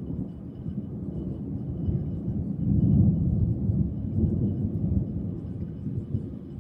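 Rolling thunder: a deep, low rumble that builds to its loudest about three seconds in, then slowly dies away.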